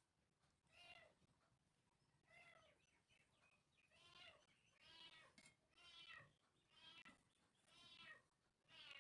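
A cat meowing repeatedly, about eight short, faint calls roughly a second apart.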